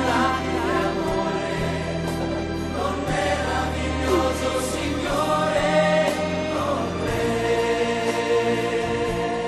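Choral music: a choir singing over sustained chords and a slow-moving bass line.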